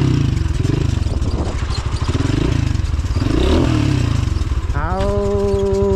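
Motorcycle engine running at low speed, its revs rising and falling as it rolls along. Near the end a man's voice holds one long sung note over it.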